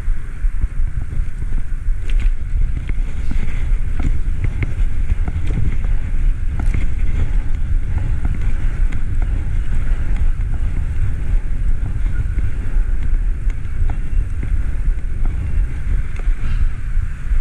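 Wind buffeting the microphone of a camera on a moving bicycle, a steady low rumble, with scattered small clicks and rattles from the bike as it rolls over the path.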